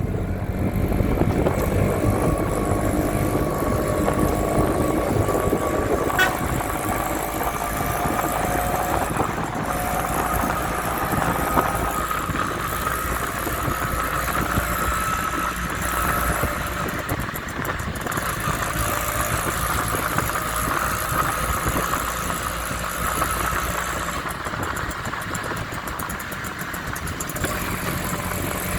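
Steady motor vehicle engine and road noise, a continuous low rumble with a faint wavering hum.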